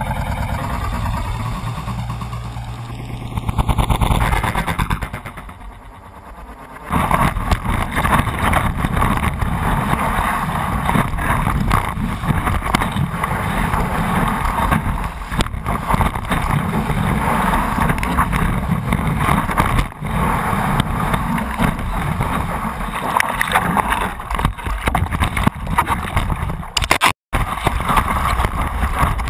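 Rushing water and wind buffeting an action camera mounted on the nose of a stand-up paddleboard as it rides a breaking wave, a steady dense rush with a brief dropout near the end.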